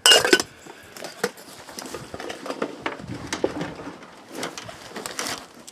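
Camping gear being handled: a metallic clink of a folding utensil set at the start, then scattered rustling and light knocks as items are rummaged out of a bag.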